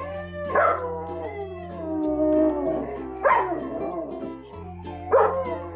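A dog whining: three drawn-out cries, each starting sharply and falling in pitch, over background music.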